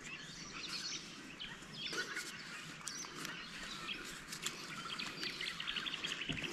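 Faint birds chirping and calling in open bushland, with a quickly repeated call near the end, and a few soft clicks from handling poly pipe fittings.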